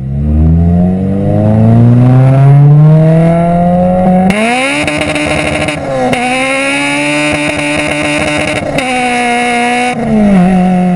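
Honda Civic's four-cylinder VTEC engine under hard acceleration. The pitch climbs steadily for about four seconds, then jumps to a harsher, louder note that holds at high revs, with one brief dip. It drops back near the end.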